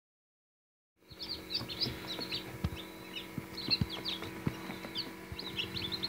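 A brood of newly hatched chicks peeping: many short, high chirps in quick succession, starting about a second in over a steady low hum.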